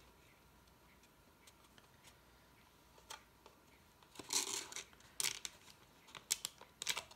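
A small card box being handled while a metal corner piece is pressed onto it: a few light, sharp clicks and a short rustle of card, starting about three seconds in after a quiet start.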